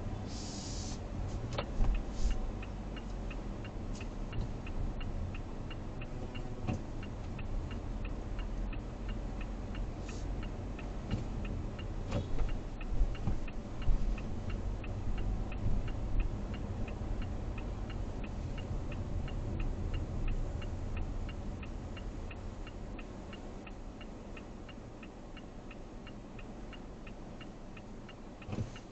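Low road and engine rumble inside a moving Mazda CX-5's cabin, with a steady fast ticking of about three ticks a second. A few louder knocks stand out, one about two seconds in and several around the middle.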